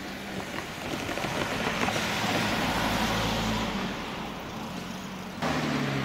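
Road traffic: a passing motor vehicle's noise swells over a couple of seconds and eases off. Near the end it changes abruptly to a steadier low hum.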